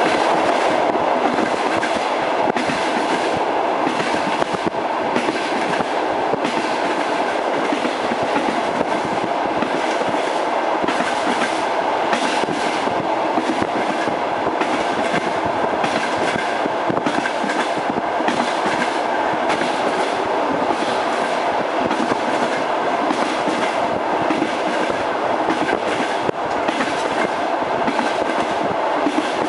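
Railway carriage wheels clattering over rail joints at speed: a steady rolling rumble broken by repeated clicks and knocks, the clickety-clack of a moving train.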